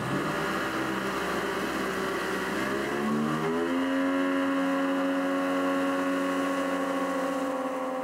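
Outboard motor on a small river boat speeding up, its pitch rising about three seconds in, then running steadily at cruising speed.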